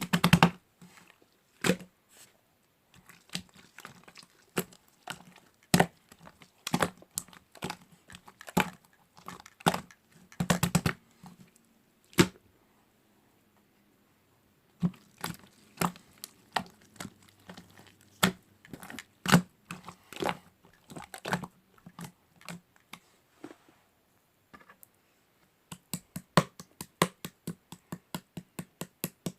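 Hands playing with slime: irregular sticky clicks and pops as it is squeezed and pressed, with a short pause about halfway, then a quick even run of about four clicks a second near the end.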